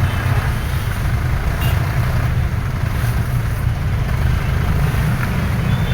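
Excavator's diesel engine running steadily with a low drone.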